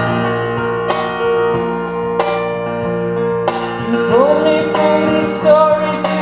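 Live music in an instrumental gap between sung lines of a song: sustained chords struck again every second or so, with a melody line that slides up about four seconds in and then holds.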